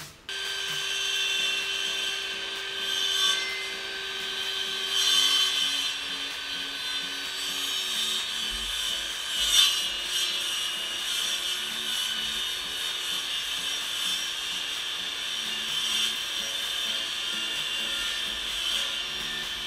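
Portable table saw running and cutting a wooden board, a steady high-pitched whine with louder surges as the blade bites into the wood, the strongest about nine and a half seconds in.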